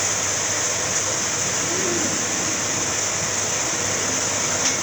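Steady rushing air noise, like a blower running, continuous and even throughout, with a faint short low call about two seconds in.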